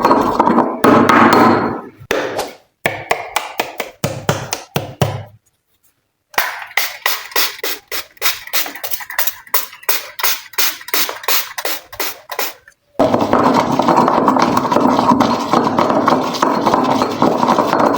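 Glossy slime being worked by hand: a dense sticky squishing texture, broken by a run of sharp crackling clicks, about three or four a second, midway through.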